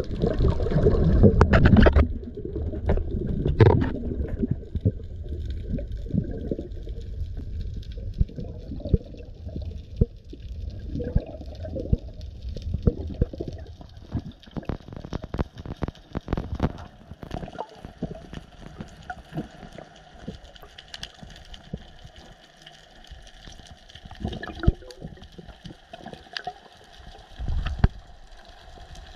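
Water heard underwater: a loud low rushing and gurgling for about the first two seconds, then scattered sharp clicks and crackles over a faint low hiss, the clicks thinning out in the second half.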